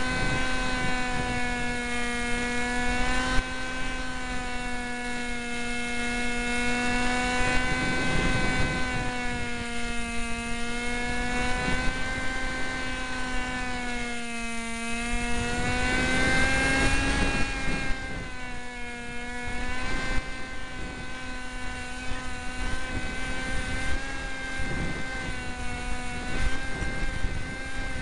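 Small electric RC plane motor and propeller running at full power, heard from the plane's onboard camera: a steady buzzing whine whose pitch sags and rises a little. Wind rumbles over the microphone throughout.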